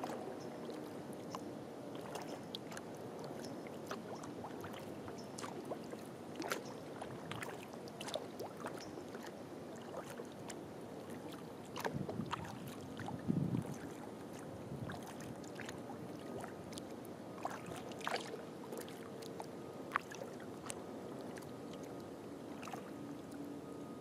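Kayak being paddled on calm water: drips and small splashes from the paddle over a steady hiss of water, with a louder thump about halfway through.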